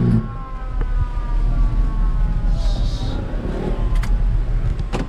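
Fire truck siren tone, faint, gliding slowly downward in pitch over a steady low vehicle rumble, with a short hiss about two and a half seconds in.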